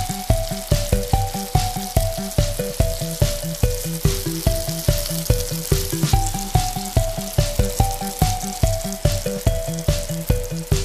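Background music with a steady beat and a simple repeating melody, over a steady sizzle of tofu (tokwa) frying in hot oil.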